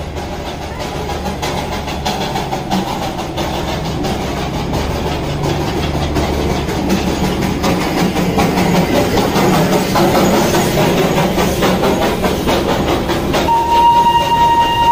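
Darjeeling Himalayan Railway steam toy train passing close by: the steam locomotive's chuffing and the clank of its running gear grow louder, then the coaches roll past. A long, steady high whistle starts near the end.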